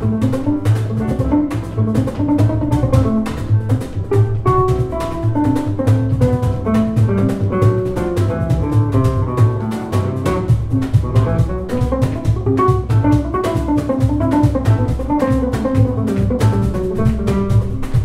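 Live jazz band playing: a plucked upright double bass and a drum kit keeping time, with pitched melodic lines above them.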